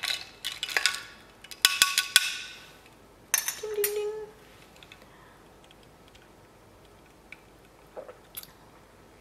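Metal bar spoon stirring a drink in a glass mug, a quick run of clinks against the glass with a ringing tone, stopping a little over two seconds in.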